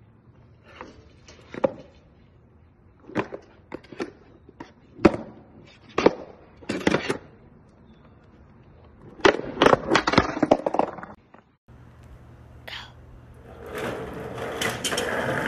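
Skateboard clattering on concrete steps: a dozen or so sharp knocks of the deck and wheels hitting the stairs, spread over about ten seconds. Near the end, a rising rolling noise of a kick scooter's wheels on a concrete path.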